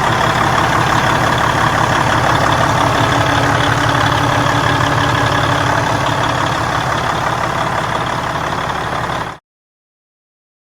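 Freightliner Cascadia's Detroit DD15 inline-six diesel idling steadily after the injector fuel line seal repair. The sound cuts off suddenly about nine seconds in.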